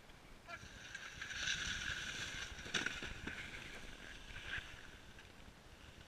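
Snowboards sliding and scraping over packed snow as a group of riders passes close by, swelling for about two seconds and then fading, with one sharp click near the middle.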